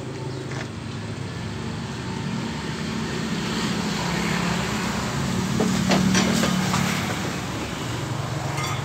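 A motor vehicle engine running steadily, swelling louder about six seconds in, with a few light clicks.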